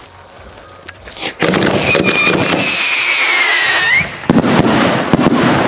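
Kamuro firework cake going off: a loud launch about a second in, then a dense hissing crackle as several comet-tailed shells rise, with a whistle sliding down in pitch, and a sharp crack a little after four seconds.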